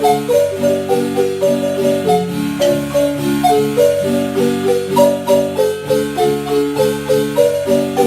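Marimba playing a melody over lower bass notes in a steady, even rhythm of struck notes.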